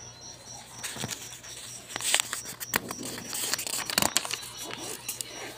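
A printed paper leaflet being handled and turned, rustling and crackling with several sharp snaps, busiest in the middle. Behind it a cricket chirps in a steady high pulse.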